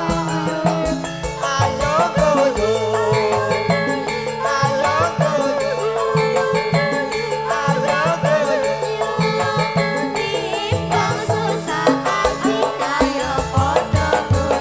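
Banyumasan Javanese gending played by a campursari band, with electronic keyboard (orgen tunggal) and kendang drums: a steady, busy drum rhythm under a wavering, ornamented melody line.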